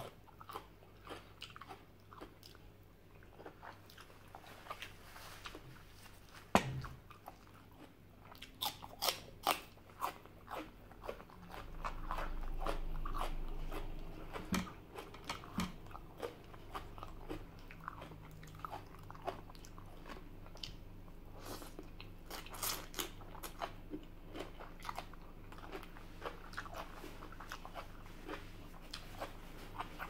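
Close-up chewing and crunching of spicy Thai mixed-seafood salad, many sharp irregular crunches as the food is bitten. A louder knock about six seconds in and a low rumble for a couple of seconds near the middle.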